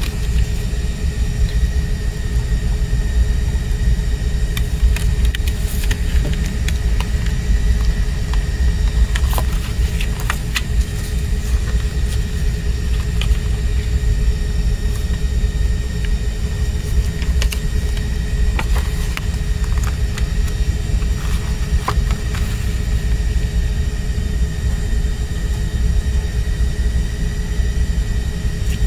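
A steady low rumble with a faint constant hum, over which come scattered light clicks and rustles as a plastic CD jewel case and its paper booklet are handled.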